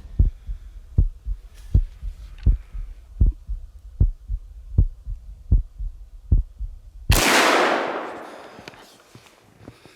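A heartbeat-like thumping, about one beat every three-quarters of a second, builds tension. Then, about seven seconds in, a single muzzleloader shot goes off loud and rolls away over about two seconds.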